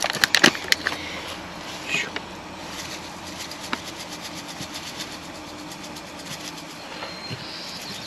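Ground coffee being poured from a plastic bag into a reusable mesh drip filter: the bag crinkles with a few sharp clicks at first and a rustle about two seconds in, then the grounds hiss and patter steadily into the mesh.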